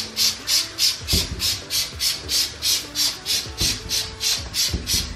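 Trigger spray bottle of Clorox cleaner pumped rapidly, about four hissing squirts a second, onto a moldy shower door track.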